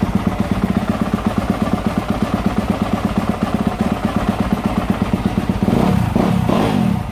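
Yamaha YZ250F's single-cylinder four-stroke engine idling steadily just after a test start, with a brief blip of the throttle near the end. It runs normally after its throttle position sensor was checked and reconnected.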